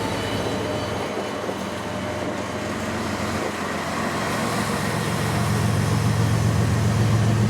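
Diesel locomotive engine running with a steady low hum, growing louder over the last few seconds.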